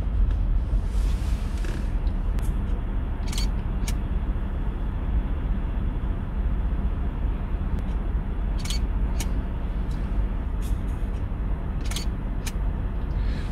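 A car moving slowly, heard from inside: a steady low rumble of engine and tyres, with a few scattered sharp clicks.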